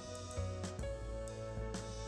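Gentle instrumental background music, with plucked notes sounding over held tones.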